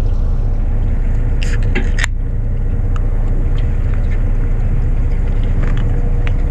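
A boat's engine runs steadily with a low rumble. About two seconds in, a drink can's pull tab is opened with a sharp crack, just after a shorter click.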